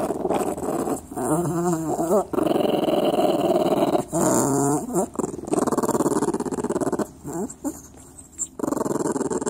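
Small dog growling on and on in a rough, continuous growl, broken twice in the first half by brief wavering, whining notes, with a quieter stretch shortly before the end.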